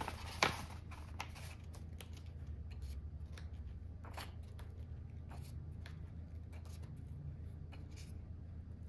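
Paper pages of a softcover colouring book being turned and handled: a sharp page-flip swish about half a second in, then scattered faint paper ticks and rustles over a steady low hum.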